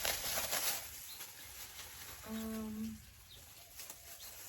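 A crackly rustle for about the first second, then, about two seconds in, a single low, steady bird call lasting under a second.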